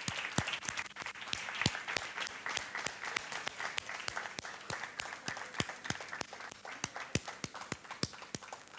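Audience applause slowly dying down, with many sharp individual claps standing out as it thins.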